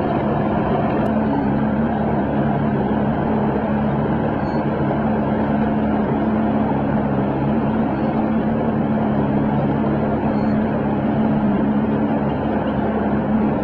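Boat motor running steadily at low speed, a constant low-pitched hum over engine and water noise.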